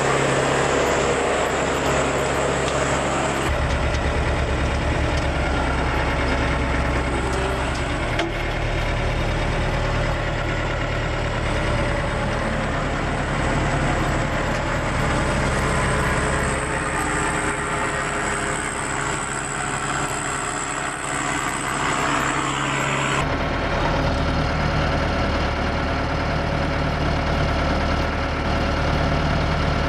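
Heavy forestry machine's diesel engine running steadily with a low, even beat, its tone changing abruptly about 3.5, 8 and 23 seconds in.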